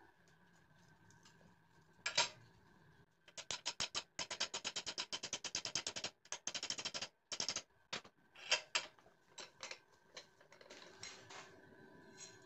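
Hammer striking a flat steel strip clamped in a bench vise, bending it over: a fast, even run of strikes, then a few separate blows.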